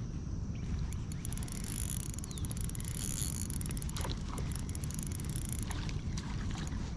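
Steady low rumble of wind buffeting the microphone on a kayak on open water, with faint scattered ticks and splashes of water against the hull.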